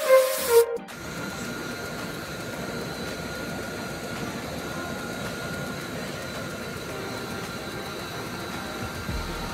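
A short end of intro music cuts off about a second in. It gives way to the steady hum of a bus's engine and road noise heard from inside the cabin, with a faint steady whine.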